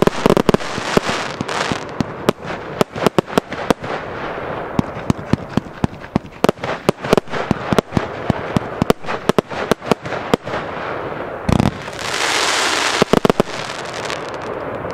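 Skull Crusher firework cake firing: a rapid, irregular series of sharp cracks and bangs from its shots and crackling star bursts. A louder bang comes about eleven and a half seconds in, followed by a hiss lasting about a second.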